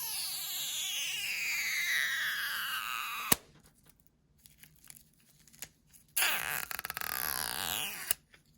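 iPhone 7 Plus battery adhesive being stretched and torn loose from the housing. It gives a high squeal that falls steadily in pitch and ends in a sharp snap about three seconds in. A second, shorter squeal starts about six seconds in and ends with another snap.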